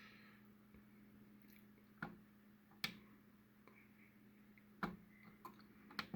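A few faint, sharp clicks at uneven intervals: the buttons of a Maple Chase thermostat being pressed to set the clock. A faint steady hum runs underneath.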